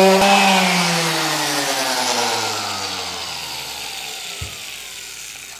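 Electric random orbital sander switched off after sanding a hardwood cutting board: a click, then its motor whine winds down, falling slowly in pitch and fading away. A light knock about four and a half seconds in.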